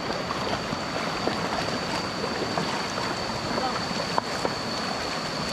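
Stream water rushing steadily, with a thin, steady high-pitched tone above it and a few faint clicks.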